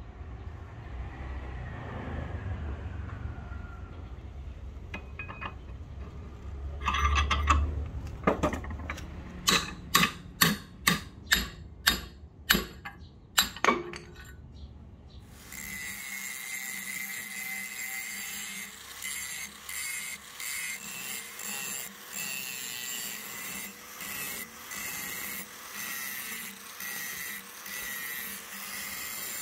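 About ten sharp hammer blows on a steel punch set in the eye of a steel axe head held in a bench vise, knocking out the old handle wood. Then an angle grinder runs steadily, grinding rust off the axe head's face, its whine dipping about once a second as the disc is pressed and eased.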